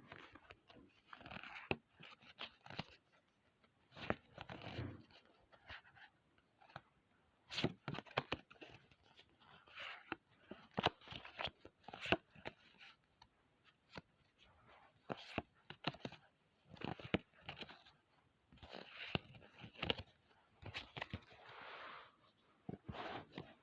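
Foil wrapper of a Pokémon trading-card booster pack crinkling and tearing as it is handled and opened, with irregular sharp crackles and rustles.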